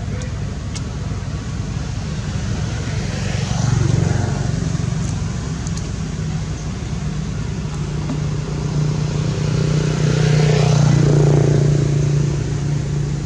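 Motor-vehicle traffic: a steady engine drone, with two vehicles swelling past, one about four seconds in and another more slowly between nine and twelve seconds.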